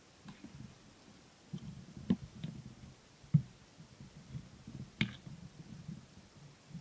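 A person eating a pancake: soft, irregular chewing and mouth sounds, with three sharp clicks about two, three and a half and five seconds in.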